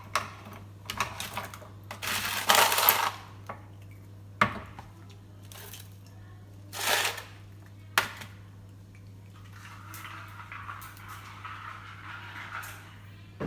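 Small dishes, cups and utensils clinking and knocking as they are handled, with a few short scraping rubs in between.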